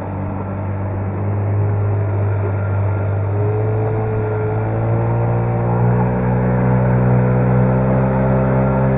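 Parsun outboard motor pushing an inflatable boat, opened up and accelerating: the engine note climbs steadily and grows louder from about three seconds in.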